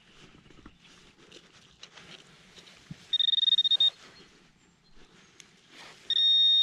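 Metal-detecting pinpointer sounding over a deep target in the hole: a rapidly pulsing high beep for under a second about three seconds in, then a steady high tone near the end. Faint scrapes and knocks of digging in between.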